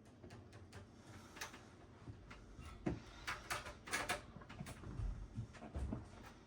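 Scattered clicks and knocks of a desktop computer's parts and case being handled during disassembly, with a quick cluster of clicks a little past the middle and a few dull thumps after it.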